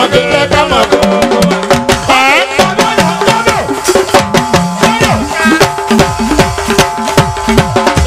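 Live band dance music: a busy, fast drum and percussion rhythm under melodic instruments, playing on without a break.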